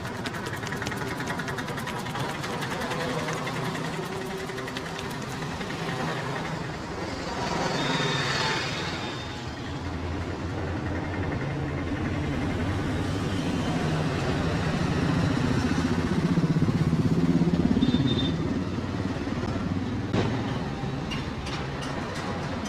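Street traffic: motorcycle and vehicle engines running and passing, swelling louder about eight seconds in and again around seventeen seconds.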